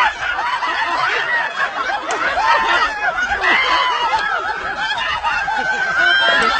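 Several people laughing and giggling in high-pitched, overlapping voices.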